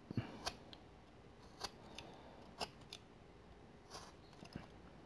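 Whittling knife paring thin shavings from basswood: a handful of faint, short slicing cuts at uneven intervals as the edges are rounded off.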